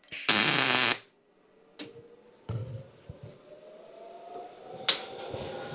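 Miller MIG welder striking an arc for a single short tack weld: one loud burst of arc noise lasting under a second. It is followed by a few light knocks and a faint tone that slowly rises in pitch.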